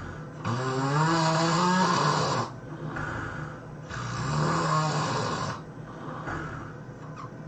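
A person snoring: two long, loud snores of about two seconds each, with a deep buzzing tone that rises in pitch at the start of the first snore.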